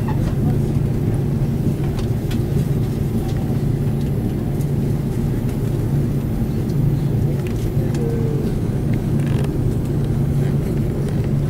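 Airliner cabin noise while taxiing: the jet engines and airframe give a steady low rumble with a constant hum, and a few faint ticks and rattles come from the cabin.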